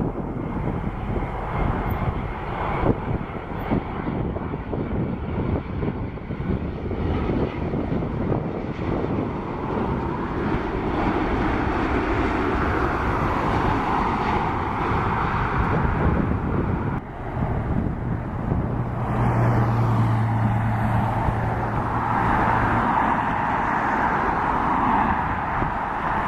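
Boeing 787-8 jet engines on a landing, a steady rushing jet noise that swells twice. A low steady hum sits under it for a few seconds in the second half.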